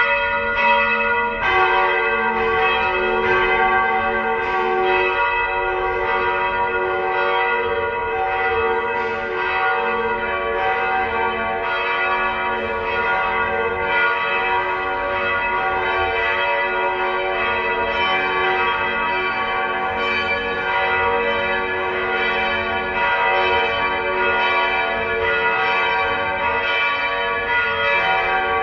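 Several church bells ringing together in a continuous peal, their strikes overlapping in a steady stream with each tone ringing on beneath the next.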